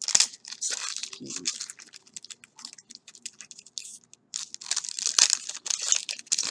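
Foil booster pack wrapper being torn open and crinkled in the hands: a string of irregular crackles and rustles, loudest near the start and again about five seconds in.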